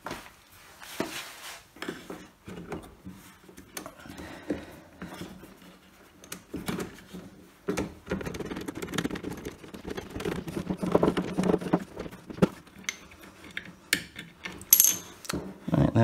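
An 8 mm socket on an extension bar being worked on a bolt inside a tumble dryer: scattered small metallic clicks and clinks of the tool against the bolt and pulley bracket, with some rubbing and scraping, as the bolt holding the idler pulley is undone.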